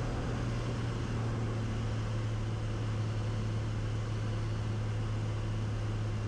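Steady in-flight drone of a Cessna 180's six-cylinder Continental O-470 engine and propeller, an even rushing noise over a constant low hum.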